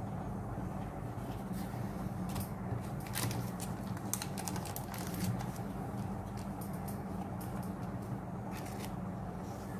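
Pokémon trading cards handled by hand: soft clicks and rustles of card stock as the cards are lowered and set down, in a cluster from about a second and a half in to past the middle and a few more near the end, over a steady low hum.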